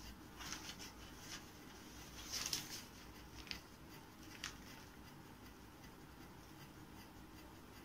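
Quiet room tone with a few faint rustles and light taps, the clearest a short cluster about two and a half seconds in.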